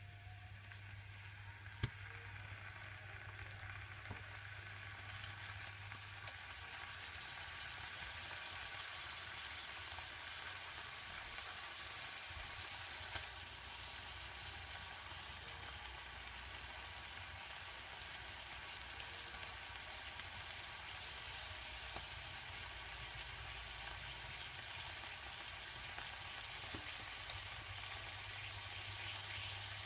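Bacon-wrapped bread rolls sizzling in melted butter in a frying pan, the sizzle growing slowly louder, with a few sharp clicks.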